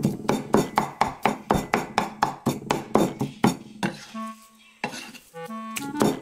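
Knife rapidly mincing pork on a cutting board, about five chops a second, stopping twice briefly near the end, over background music with plucked strings.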